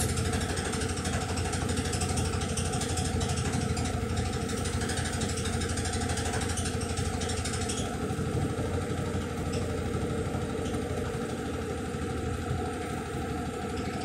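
Electrolux Turbo 15 kg top-loading washing machine spinning its basket at speed: a steady motor hum and whir.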